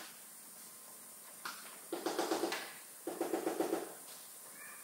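Two short bursts of rapid mechanical rattling, about a second apart, after a brief lighter rattle.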